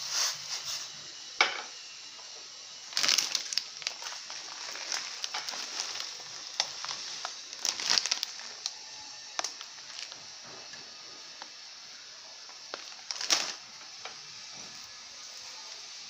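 Rolled oats being tipped into a steel pan of boiling water: a steady bubbling hiss with short bursts of noise every few seconds as the oats go in.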